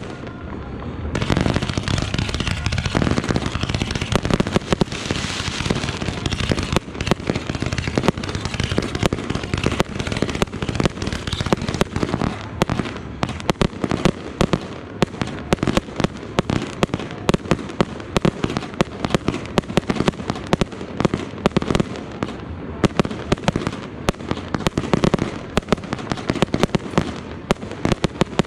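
Fireworks display: a dense barrage of aerial shells and comets launching and bursting, many sharp bangs each second overlapping with crackle, thickening about a second in.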